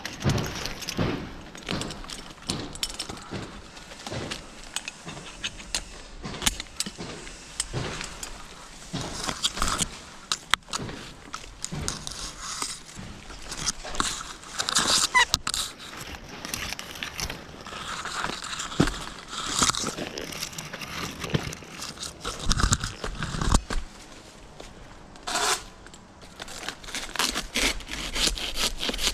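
Irregular scraping, crackling and clinking from palm-trimming work: dry queen palm fronds being handled and cut, with metal climbing gear clinking, in short uneven clicks and rustles with no steady rhythm.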